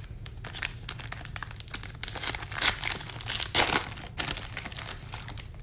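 Blue foil wrapper of a Gold Standard trading-card pack being crinkled and torn open: a run of crackles and rips, loudest in the middle.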